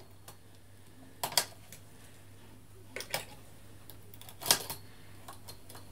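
Scattered sharp metallic clicks of knitting-machine needles and a hand tool against the needle bed of a Brother 950i as stitches are cast off by hand behind the gate pegs, a few clicks a second or so apart over a faint low hum.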